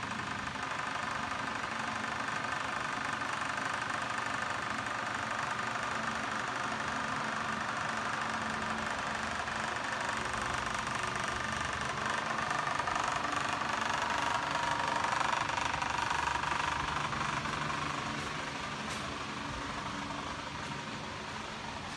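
Greenhouse ventilation fans running with a steady humming drone, a little louder around the middle.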